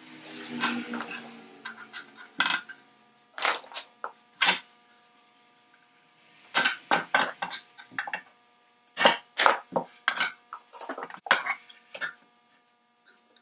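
Sharp metal clinks and taps on a sheet-metal carriage lamp body as parts are handled and set on it, coming in irregular clusters with a short ring after each.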